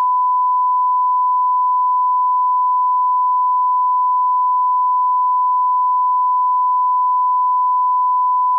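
1 kHz reference test tone of the kind that goes with colour bars: a single steady, unbroken beep held at one pitch and a constant loud level.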